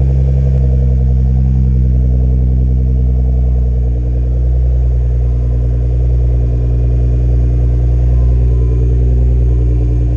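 Nissan GT-R R35's twin-turbo VR38DETT V6 idling steadily shortly after a cold start, through a freshly fitted aftermarket mid-pipe-back exhaust with titanium tips: a deep, bassy, even exhaust note that is not crazy loud.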